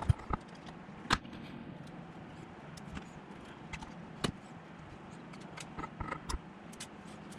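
Scattered sharp clicks and light metallic ticks of a precision Phillips screwdriver and tweezers working the tiny screws of a lens barrel's bushings, the strongest about a second in and about four seconds in, over a faint steady low hum.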